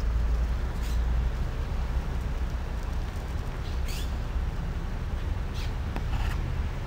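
Steady low outdoor rumble, with four short high chirps scattered through it. The clearest chirp, about four seconds in, sweeps downward.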